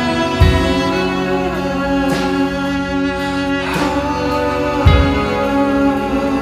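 Background music: an instrumental track of sustained chords, with a deep bass hit about half a second in and again about five seconds in.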